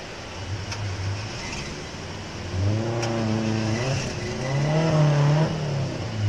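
Suzuki Jimny 4x4's engine working under load as it crawls over rocks, revs coming up about two and a half seconds in, rising and falling, loudest shortly before the end and then easing off.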